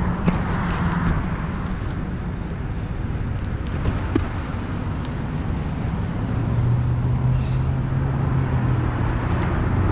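Road traffic: passing cars' engines and tyre noise, with one vehicle's engine hum growing louder about two-thirds of the way through.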